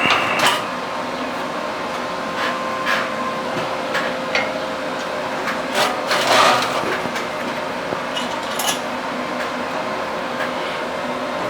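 Scattered knocks, clinks and scrapes of a metal sculpture being handled and repositioned on the bench, over a steady electrical hum.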